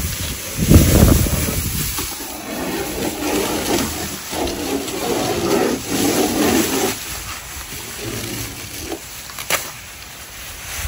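Wind buffeting the microphone, with a strong gust about a second in, and thin plastic masking sheet rustling and crinkling as it is peeled off a painted panel and balled up; a single sharp click near the end.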